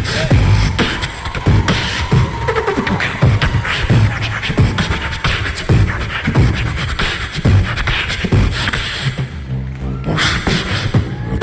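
Beatboxing: one man's vocal percussion imitating a drum kit, with low kick-drum thumps and sharp hi-hat and snare-like clicks in a steady, dense beat. About nine seconds in the beat gives way to a brief buzzing pitched bass sound, then the beat starts again.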